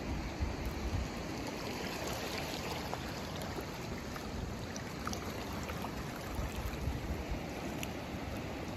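Steady wash of shallow seawater and gentle surf over a rocky reef flat, with a few faint ticks.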